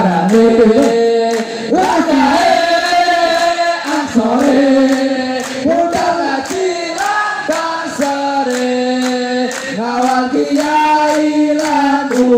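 A large group of men singing a song together in unison, with hand claps in time.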